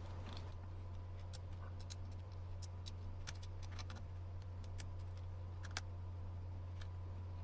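Faint, irregular small clicks of small springs and plastic RC parts being handled and fitted by hand onto a servo saver, over a steady low hum.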